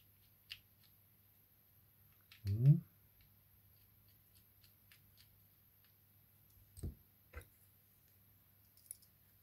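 Faint, scattered clicks of a precision screwdriver working tiny Phillips screws out of a smartwatch's internal frame. About two and a half seconds in comes a short hum rising in pitch, the loudest sound, and near seven seconds there are two soft thumps as tools are put down on the mat.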